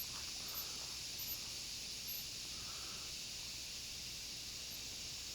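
Steady high hiss, with a few faint soft knocks in the first two seconds.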